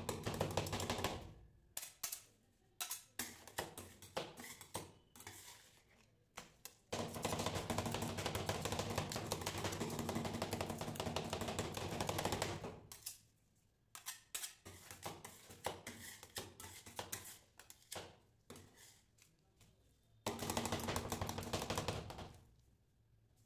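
Two metal spatulas chopping freezing ice cream mixture on a metal cold plate. Stretches of fast, clattering taps several seconds long alternate with slower, scattered single chops.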